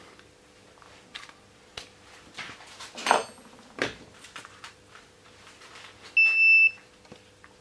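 Tools being handled on a workbench, with light clicks and two louder knocks or scrapes a few seconds in. About six seconds in, an Extech handheld digital meter gives one short, high electronic beep as it is switched on.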